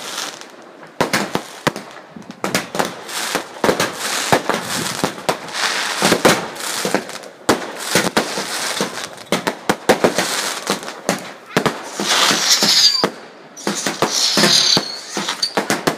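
Fireworks going off in quick succession: many sharp bangs mixed with dense crackling, with a few short high whistles near the end.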